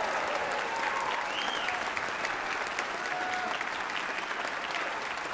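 Concert-hall audience applauding steadily with many hands clapping at once.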